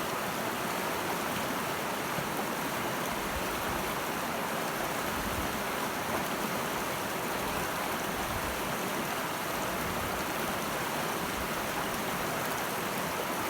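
Middle Fork Snoqualmie River rushing steadily, a constant wash of flowing water.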